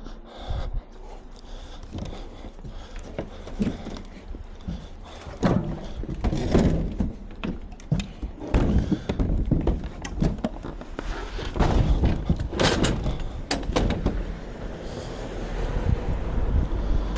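Repeated thunks and bangs as a scrap tumble dryer is handled and loaded onto a truck's tail lift, the heaviest knocks coming in a cluster about two-thirds of the way through.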